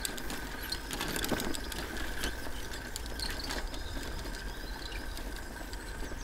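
Bicycle rolling along a path, its tyres rumbling and its frame rattling with many irregular clicks, over a steady high tone.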